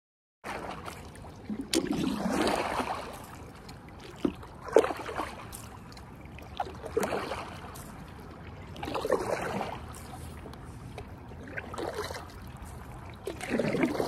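Stand-up paddle blade dipping and pulling through river water, a swishing splash about every two seconds, six strokes in all. A single sharp knock about five seconds in is the loudest moment.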